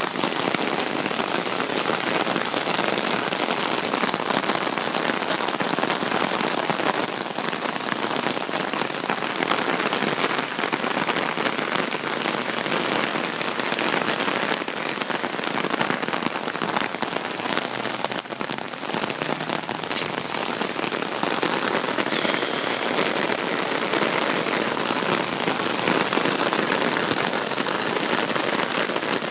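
Heavy rain pouring down steadily during a thunderstorm: a dense, even hiss with the patter of individual drops, and no thunder.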